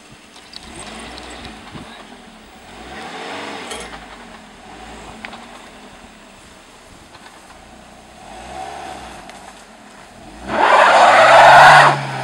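Car engine revving up and down in short bursts as the car crawls over rocks on a rough track. Near the end it revs harder, with a loud harsh rushing noise for about a second and a half.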